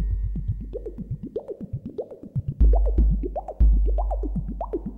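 Electronic car-audio bass music: long, deep sub-bass notes under quick synth blips that slide up and down in pitch.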